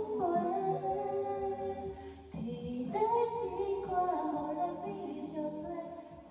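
Background music: a woman singing long held notes over a soft accompaniment, with a short break about two seconds in.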